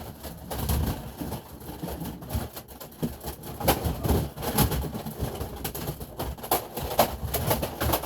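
Rummaging through a pile of plastic Nerf blasters: irregular knocks and clatters as toy blasters are moved and shifted, with low handling rumble.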